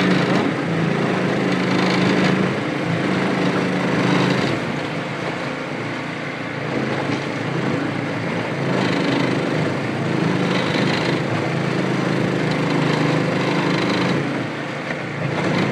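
Small boat's outboard motor running steadily under way, with water rushing and splashing along the hull.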